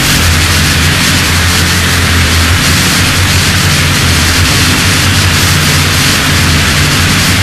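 Harsh noise music: a loud, dense wall of static-like hiss over a steady low hum, unchanging throughout.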